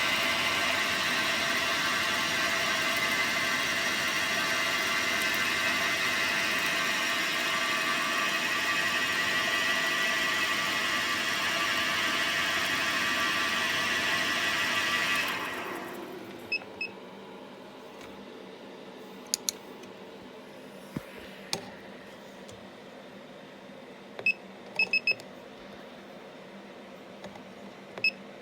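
Dyna Mechtronics DM3000 CNC lathe running steadily with a hum of several fixed tones, which winds down and stops about fifteen seconds in. After that there are a few sharp clicks and short electronic beeps near the end.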